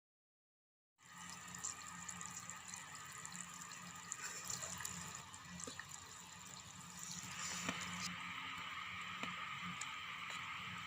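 Water trickling and splashing in the kitchen, with a few light clicks; it gets louder about seven seconds in.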